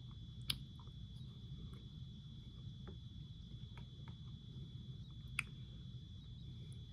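Plastic fork clicking and scraping against an open metal tin while picking fried herring off its bones: two sharp clicks, about half a second in and again about five and a half seconds in, with fainter ticks between. Under it runs a steady low room hum and a thin, steady high whine.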